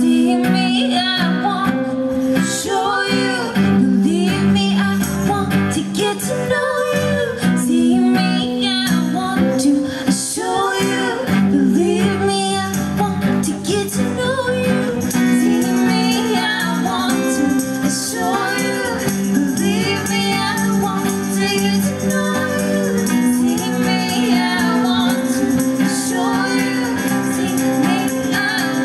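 Live band music: a woman sings lead over an acoustic guitar and band backing.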